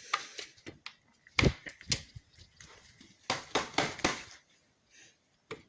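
Handling noise from a Hoover WindTunnel T-Series vacuum's plastic parts and filter: scattered clicks, knocks and rustles, busiest around three to four seconds in, with the vacuum switched off.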